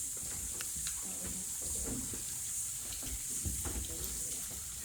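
Outdoor ambience: a steady high-pitched hiss that swells and fades slowly, over low rumbling and a few light clicks.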